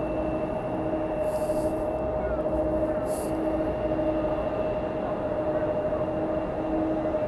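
Jet airliner engines running steadily, a whine over a steady rumble, with a lower tone pulsing on and off about once a second. Two short hisses come about a second and a half and three seconds in.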